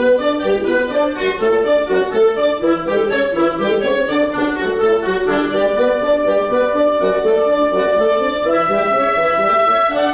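Woodwind section of a band playing a fast, busy passage together, coming in sharply at once; a long high note is held from about eight and a half seconds in.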